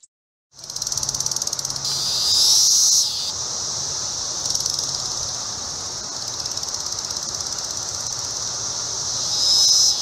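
Chorus of Brood X periodical cicadas: a dense, steady, high-pitched buzz that starts about half a second in and swells louder twice, around two to three seconds in and again just before the end.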